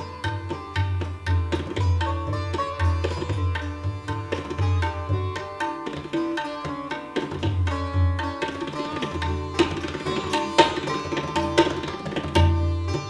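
Sitar and tabla playing together in Hindustani classical music: fast plucked sitar phrases over a dense run of tabla strokes, with deep bass-drum notes from the bayan coming and going.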